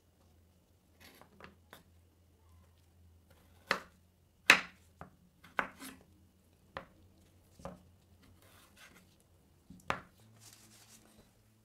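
Knife cutting raw elephant foot yam on a wooden cutting board: about eight sharp, irregular knocks of the blade through the yam onto the board, the loudest about four and a half seconds in, with a few fainter taps before them.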